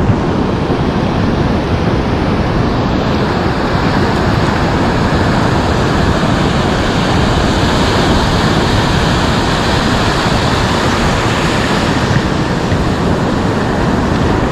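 Surf breaking and washing up a sandy beach, mixed with steady wind noise on the microphone.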